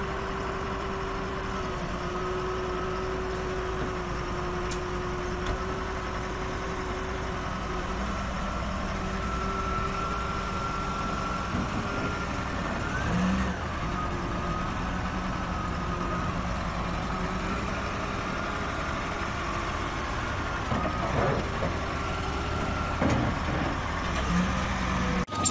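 Caterpillar 950F wheel loader's diesel engine running steadily at low revs as the loader creeps down a truck's loading ramps.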